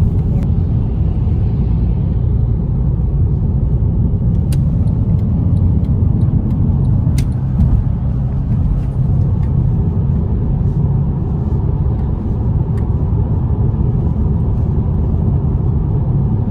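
Steady low road rumble inside a moving car's cabin, with a couple of faint clicks.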